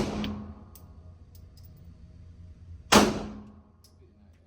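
Two gunshots about three seconds apart, one right at the start and one about three seconds in, each followed by a ringing echo that dies away over about half a second.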